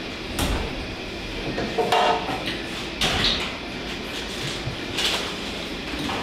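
A few short knocks and clatters, about four spread through, over a steady background hiss.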